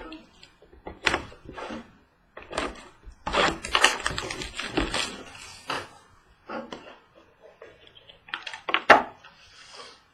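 A trading card box and its packaging being opened by hand: cardboard and wrapper crinkling, tearing and clicking in irregular bursts with short pauses.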